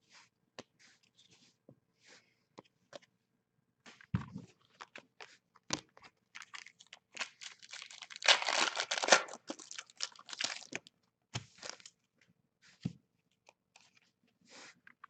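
Trading card pack wrapper crinkling and tearing open: a run of scattered small crackles and clicks, densest about eight to ten seconds in.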